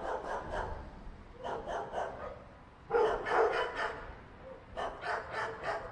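A dog barking in several short runs of quick barks.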